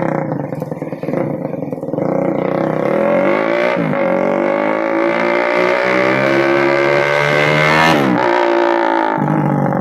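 Suzuki Raider 150 Fi's single-cylinder four-stroke engine running through an aftermarket Daeng exhaust pipe. It idles, is revved up about four seconds in and held with the pitch slowly climbing, then drops back to idle about eight seconds in.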